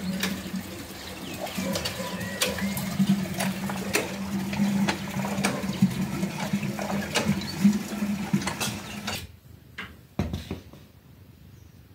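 A steady low hum with many scattered clicks and ticks, which stops suddenly near the three-quarter mark. After it, a plastic basket of mushrooms is set down on a table with a few knocks.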